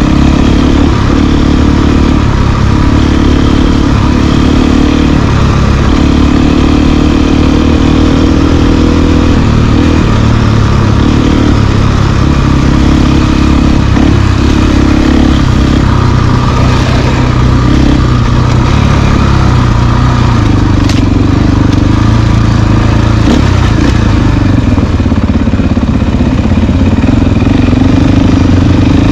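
Dual-sport motorcycle engine running under way, its revs rising and falling.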